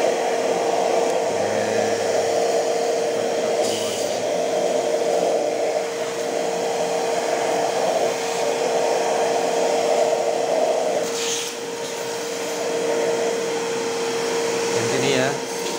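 Multipro vacuum cleaner running with a steady whine, its nozzle sucking dust and thread lint out of the underside of an industrial buttonhole sewing machine. The rush of air lessens about eleven seconds in.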